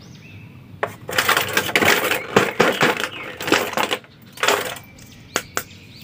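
Plastic crinkling and rustling for a few seconds as a plastic action figure is handled, with a second short rustle and a few sharp plastic clicks near the end.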